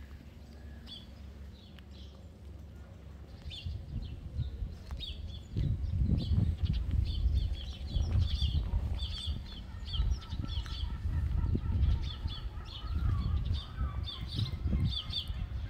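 Small birds chirping in short repeated notes throughout. A low, irregular rumble sets in about five seconds in and stays the loudest sound.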